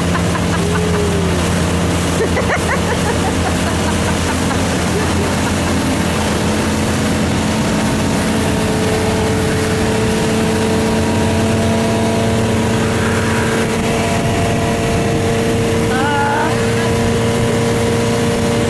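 Motorboat engine running steadily at towing speed, with wind and rushing water. The engine's tone shifts slightly about eight seconds in.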